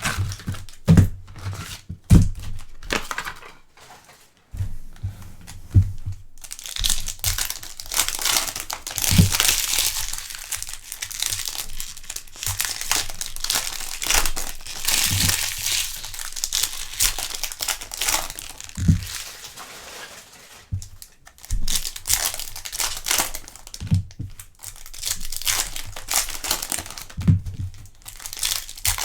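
Foil trading-card pack wrappers being torn open and crinkled by hand, in long crackling stretches with a few soft knocks of handling on the table.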